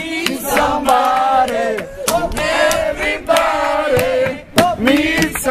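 A group of people singing loudly together along to a strummed acoustic guitar, half-shouted like a chant.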